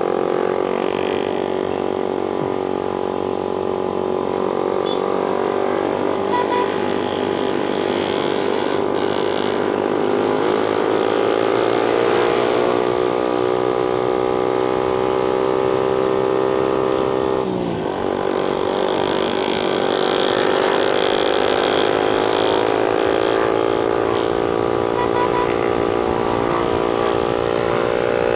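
Suzuki GSX-R150's single-cylinder engine running under way, its note rising slowly as the bike gathers speed. About 17 seconds in the pitch drops sharply for a moment, then climbs again.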